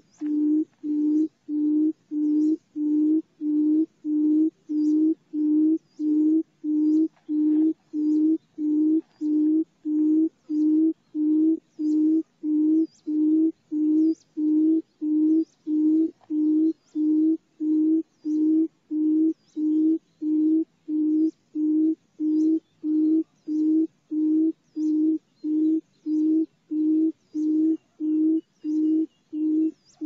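Barred buttonquail calling: an unbroken, even series of short low booming hoots, about three every two seconds.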